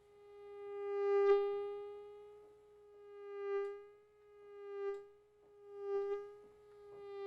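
Synthesized mosquito buzz, a steady whining tone built in Logic Pro X. It swells and fades about five times, as if the mosquito flies close to the ear and away again.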